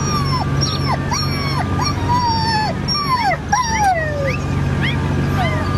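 Newborn puppies whimpering: a quick run of thin, high-pitched squeals, most sliding down in pitch, over a steady low hum.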